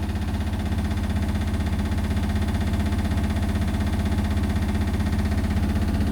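Indesit washing machine in its high-speed final spin: the motor hums steadily and the drum throbs in a fast, even pulse. The drum is spinning off-balance with a load of towels, and the whole machine is shaking.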